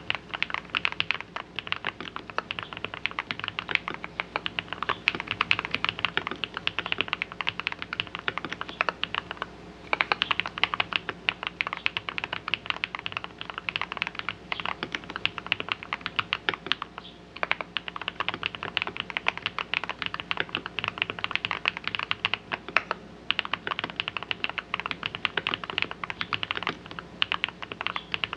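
Continuous typing on an RK Royal RG-987 mechanical keyboard fitted with lubed Holy Panda-style tactile switches, Poron plate foam and a silicone-filled case, giving a deep "thocky" keystroke sound. The typing stops briefly about ten seconds in.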